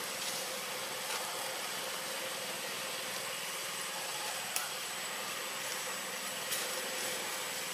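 Steady outdoor background noise with a faint constant high whine, broken by two sharp clicks about four and a half and six and a half seconds in.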